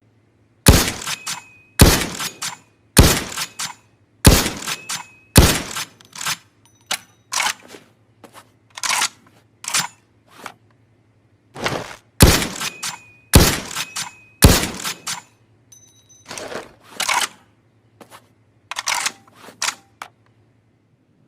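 Sound effects of a Winchester Model 70 bolt-action rifle: a series of sharp, loud strokes about a second apart, with quieter clusters of clicks between the loud runs.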